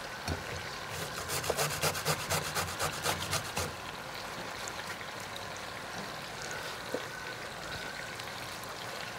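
Fresh ginger being grated on a metal box grater: a quick run of rasping scrapes, about four or five a second, starting about a second in and lasting a few seconds. Underneath is the steady low sizzle of meat frying in a pan.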